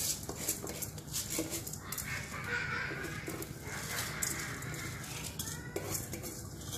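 Soaked raw rice being tipped and pushed by hand off a steel bowl into a pot of boiling stock: a dense patter of small splashes and ticks as the grains land, over a low steady hum.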